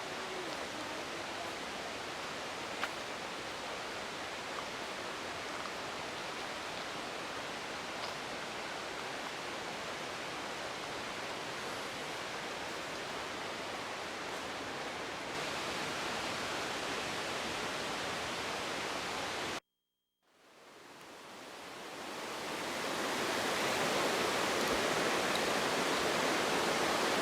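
Steady rush of a waterfall's falling water. About twenty seconds in it cuts out for a moment, then swells back louder.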